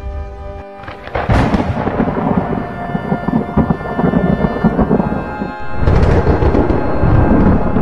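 Thunder: a loud clap about a second in that rolls into a long rumble, then a second loud clap just before six seconds in, rumbling on, with soft background music underneath.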